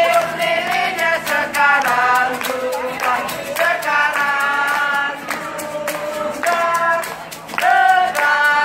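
A group of people singing a birthday song together, holding long notes, with hands clapping along in time.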